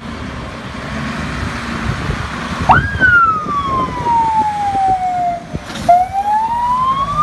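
Fire engine siren starting up about two and a half seconds in. It gives a quick sharp rise, then a slow wail that falls for about three seconds and climbs again, over a steady rumble.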